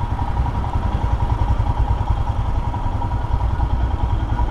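Royal Enfield Himalayan's 411 cc single-cylinder engine running at low speed, a steady low pulsing beat from the exhaust and engine.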